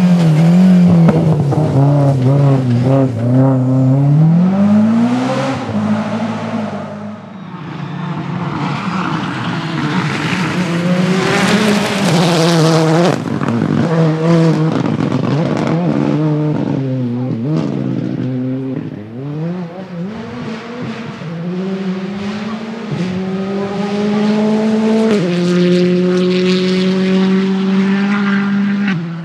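Rally car engines at high revs on a special stage, the pitch rising and falling over and over with gear changes, and the sound shifting abruptly a few times.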